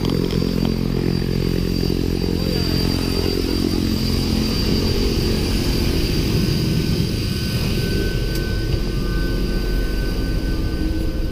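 Small propeller airliner's engines running steadily, a dense low engine hum with a steady high whine above it. A second, lower whining tone comes in about eight seconds in.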